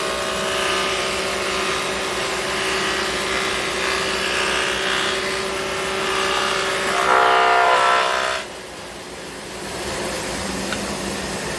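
Shopsmith woodworking machine running with its motor humming steadily under load. The sound swells briefly, then drops sharply about eight seconds in, leaving a quieter steady hum.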